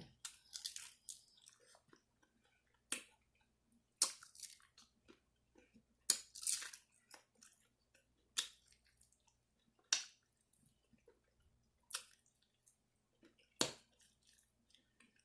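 Close-up chewing of a mouthful of fried chicken and rice: soft wet mouth sounds and lip smacks, with a sharp click or smack every second or two.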